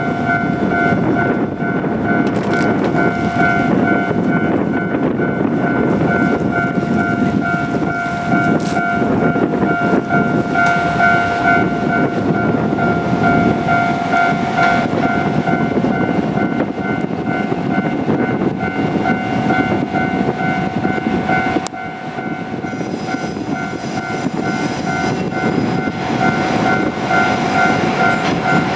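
Level crossing warning bell ringing on steadily, its repeated electronic tone going throughout, over the rumble of a JR Kyushu KiHa 47 diesel railcar running past on the line. About two thirds of the way through there is a sharp click, and the rumble drops slightly.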